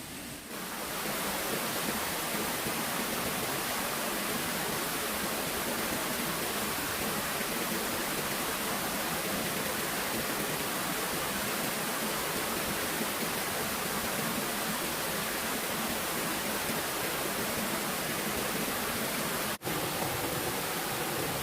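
Steady rush of flowing stream water, an even hiss with no rhythm, broken by a momentary dropout near the end.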